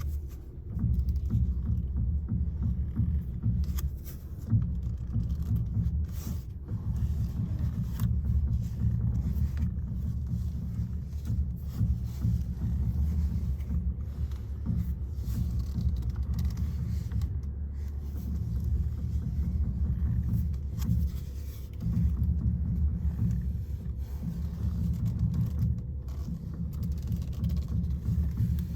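2016 VW Jetta with its engine running, a steady low rumble, with a scattered series of sharp pops from the car as the steering wheel is turned.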